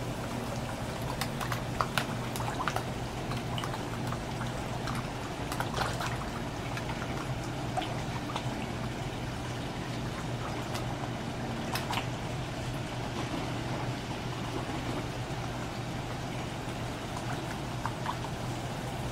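Koi pond water trickling and pouring, with scattered small splashes and slurps as a crowd of koi jostles at the surface taking floating food pellets; a steady low hum runs underneath.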